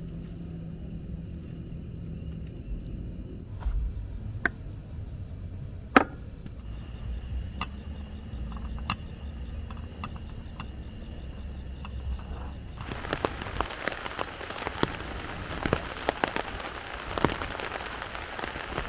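Rain on a tent: at first scattered drops tap one by one over a low rumble. About two-thirds of the way through it becomes a dense hiss of many drops.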